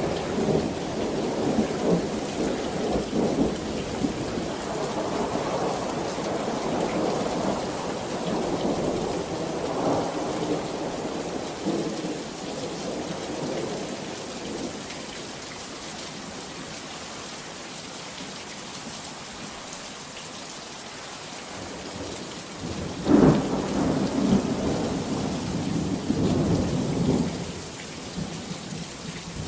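Thunderstorm: steady heavy rain with rolling thunder rumbling over the first dozen seconds and dying away, then a sudden sharp thunderclap about 23 seconds in, followed by a rumble that fades.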